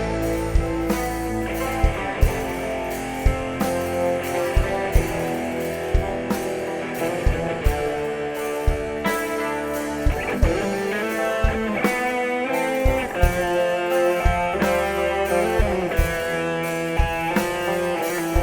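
Live band playing an instrumental passage through the stage PA during a sound check: a guitar playing melody lines over bass and a steady drum beat.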